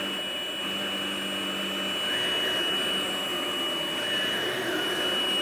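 Ryobi 18V ONE+ cordless stick vacuum running steadily in carpet mode with the brush roll on: a constant motor rush with a steady high whine.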